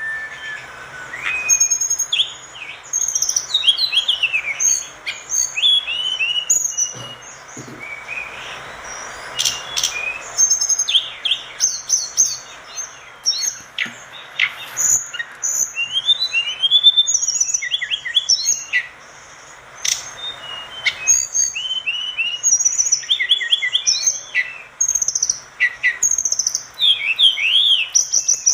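A tledekan gunung, a blue flycatcher, singing non-stop: a fast, varied song of short, sweeping whistled notes, many sliding down in pitch, with only brief pauses. A steady hiss runs underneath.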